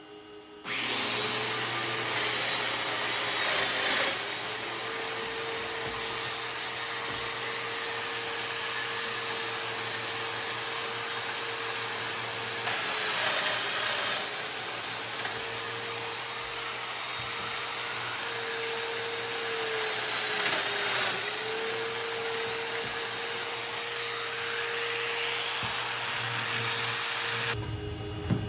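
Festool Domino joiner running with a steady high whine as it cuts mortises into plywood; the pitch dips briefly twice as the cutter is loaded, and the motor starts and stops abruptly.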